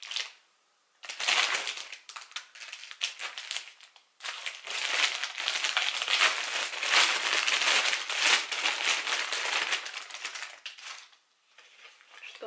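Plastic mailing packaging crinkling and rustling as it is handled and opened, in two long stretches with a brief pause about four seconds in, then quiet near the end.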